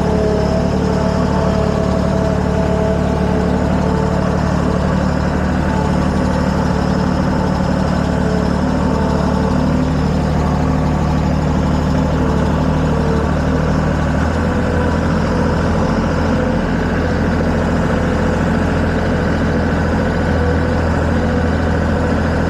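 A vehicle engine running steadily, its note dropping about two-thirds of the way through.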